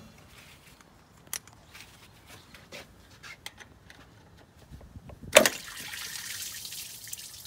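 Small tool clicks and taps at the engine's thermostat housing, then a sharp knock about five seconds in, followed by engine coolant trickling out of the opened housing as the old thermostat comes out.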